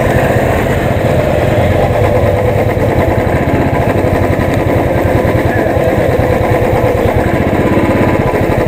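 Motorcycle engine running steadily, a fast, even pulsing heard close up from the rider's own bike.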